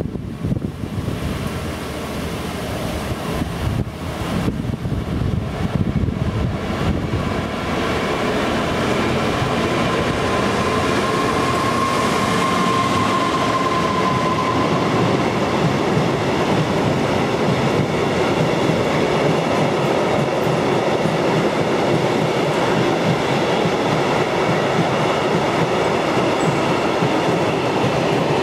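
A freight train passing through a station. The approaching locomotive's noise builds over the first several seconds, then a long rake of covered wagons runs past steadily on the rails. A high steady tone sounds for a few seconds near the middle.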